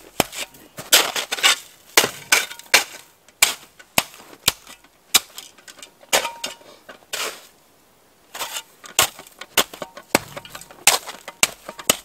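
A snow shovel chopping and packing crusty snow blocks around the legs of a pole bipod, with irregular sharp crunches and knocks and a brief pause about two-thirds through.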